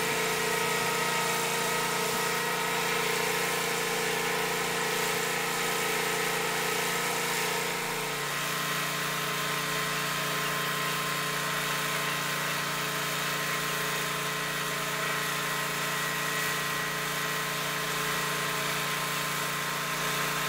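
Hydraulic drive head and its power unit running steadily, turning a helical pier down into the ground, with a steady hum. The tone shifts slightly about eight seconds in.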